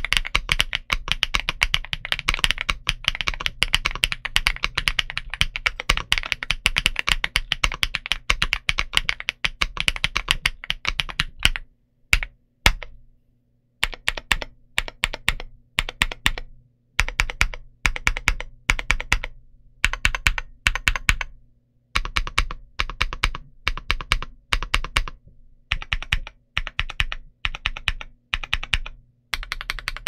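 Stock Gamakay TK75 Pro aluminum 75% mechanical keyboard with KTT Hyacinth linear switches and DS PBT Cherry-profile keycaps, typed on quickly and steadily for about eleven seconds. After a brief pause, keys on the right side are pressed in rapid bursts of about a second each with short gaps between.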